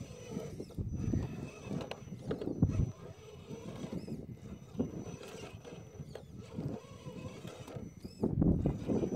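Scale RC rock crawler's small electric motor and geartrain working in short, uneven throttle bursts as the truck crawls slowly over rock, with irregular low rumbles, loudest near the end.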